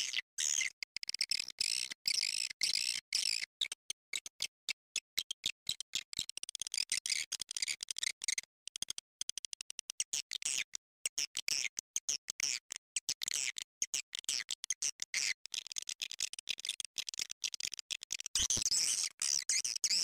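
Swiftlet call recording, the kind played through loudspeakers to lure swiftlets into a nesting house: rapid high-pitched swiftlet chirping and twittering, cut into quick pulses with brief gaps, thickest and loudest near the end.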